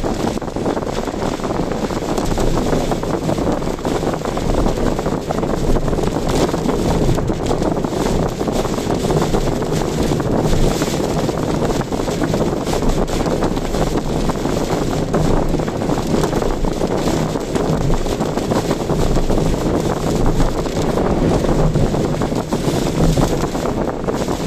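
A car driving through strong typhoon wind: a steady rush of wind and road noise with the wind buffeting the microphone.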